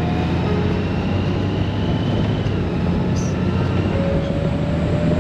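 Honda Gold Wing motorcycle riding along at a steady pace: a low, even engine hum under steady wind and road noise.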